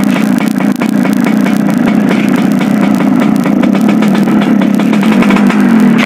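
Yamaha RX King's two-stroke single-cylinder engine running loud at steady revs, with a rapid buzzing exhaust pulse, while its carburettor setting is tested.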